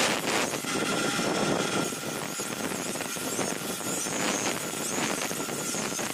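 Steel knife blade being ground on a large motor-driven grinding wheel: a steady grinding noise as the blade is held against the spinning wheel, with a constant high whine from the running machine.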